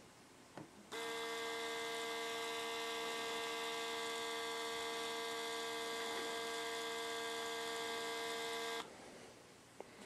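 Rollease 25 mm lithium-ion battery tubular shade motor (1.1 Nm, 40 rpm) running with no load: a steady electric hum with a clear pitch that starts about a second in and cuts off suddenly near the end. A faint click comes just before it starts.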